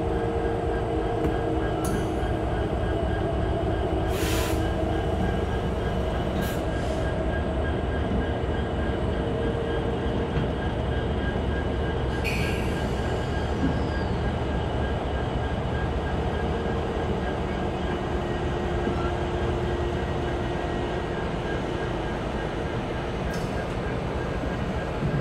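Norfolk Southern diesel-electric locomotives, an SD60E among them, rolling slowly past with their engines running in a steady low drone and hum. A few brief clicks and a short high wheel squeak come about halfway through.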